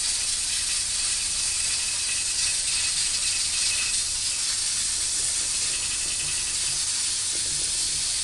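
A steady high hiss.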